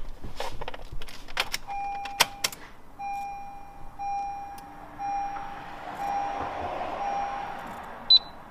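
A radar detector powering up after being hard-wired: a series of about six steady, evenly spaced beeps, preceded by a few sharp clicks and followed by one short, high chirp near the end.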